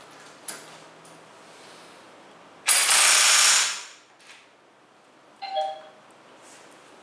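ZIPPTORK cordless impact wrench running a flange bolt down for about a second, starting sharply and stopping once the 45 Nm target torque is reached. A short electronic beep follows a couple of seconds later.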